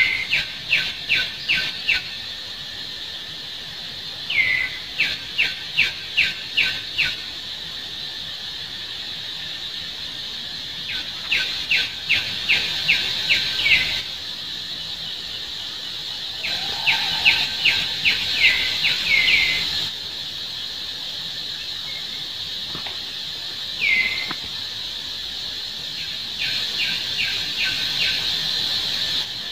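A bird calling in bouts of six to eight quick, falling chirps, a few seconds apart, over a steady high drone of insects.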